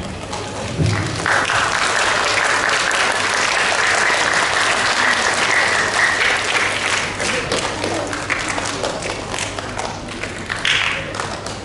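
Audience applauding, starting about a second in and gradually dying down toward the end.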